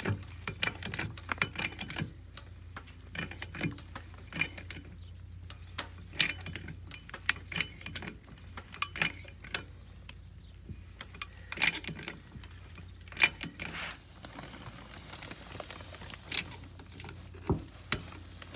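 Irregular metallic clicks and clinks from a jack being worked under the frame to raise a mobile home back up at one pier.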